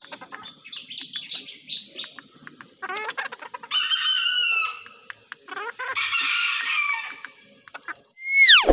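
A hen clucking softly while pecking feed from a plastic bowl, with quick taps of her beak against the bowl; a rooster crows twice, about four and six seconds in. Near the end a loud swoosh effect falls steeply in pitch, the loudest sound.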